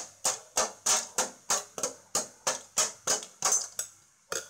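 A knife striking ice cubes in a stainless steel bowl, crushing them: rapid repeated clinks of the blade on ice and metal, about three a second, with a short pause near the end.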